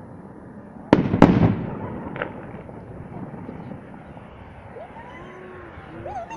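Aerial firework shells bursting: two loud bangs in quick succession about a second in and a smaller bang a second later, followed by a fading crackle.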